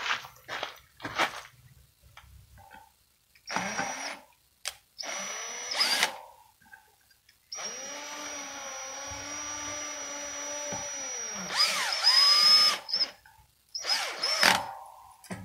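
Cordless drill/driver driving screws in four runs of its motor whine, the longest lasting about four seconds in the middle; the pitch dips near the end of several runs as the screw draws tight. A few light clicks come in the first second and a half.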